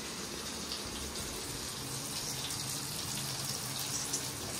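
Surmai (kingfish) steaks shallow-frying on an iron tawa over a gas burner: a steady sizzle with faint crackling.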